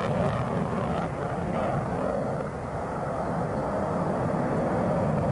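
Jet fighter in display flight overhead, its engines making a steady, dense rushing noise that dips slightly about halfway through.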